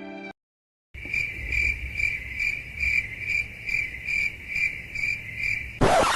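Cricket chirping sound effect, a steady high chirp pulsing about two and a half times a second, the comic cue for an awkward silence. It starts about a second in after a brief dead gap, and a short loud noisy burst cuts in just before the end.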